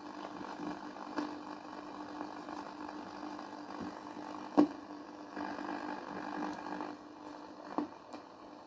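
Static from a homebuilt radio receiver's speaker over a steady low hum, as the RF tuner's capacitor is turned in search of a signal. A sharp click comes about four and a half seconds in, and a smaller one near the end.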